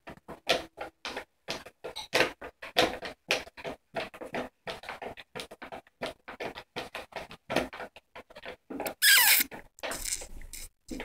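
A cat's claws scratching and pawing at a sheet of crinkly clear plastic on a rug: rapid, irregular scratches and rustles, with a louder crinkling rustle about nine seconds in.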